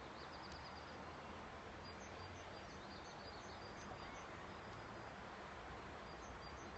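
Faint dawn chorus of birds: short high chirps repeated every half second or so, over a steady background hiss.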